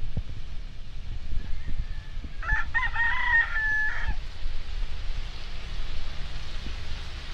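A rooster crows once, about two and a half seconds in: a pitched call of about a second and a half that ends on a held note.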